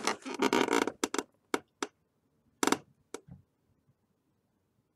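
Computer-desk clicks and knocks from operating the mouse: a quick, loud cluster in the first second, then a few single sharp clicks and one short burst about two and a half seconds in.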